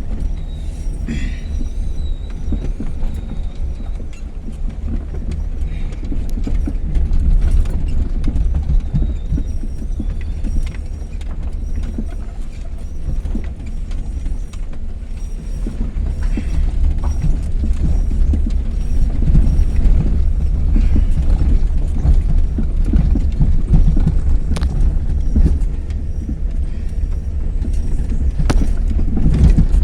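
Car moving slowly, heard from inside the cabin: a steady low rumble with irregular knocks and rattles throughout.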